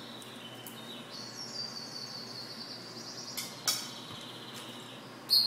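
Goldfinch mule (goldfinch × canary hybrid) singing: a long, high drawn-out note lasting a couple of seconds, two short sharp notes, then a loud high note near the end.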